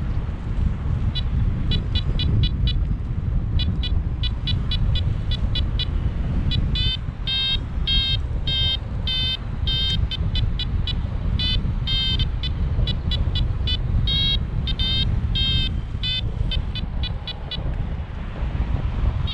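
Paragliding variometer (Syride SYS'Nav) beeping in a long run of short repeated tones, a few beeps a second, the pattern a vario gives when the glider is climbing in lift. Steady wind rushing over the microphone underneath.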